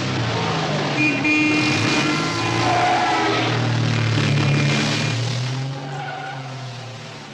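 Tyres squealing and skidding on pavement over the steady hum of an engine; the sound falls away toward the end.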